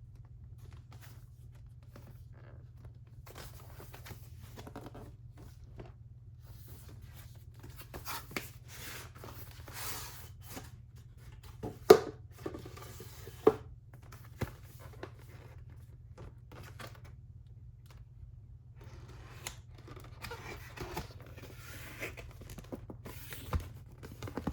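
Keyboard packaging being opened and handled by hand: rustling and tearing, with scattered clicks and two loud sharp knocks about halfway through, over a steady low hum.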